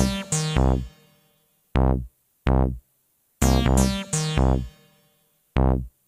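Background electronic music: short synthesizer and keyboard phrases broken by brief silences.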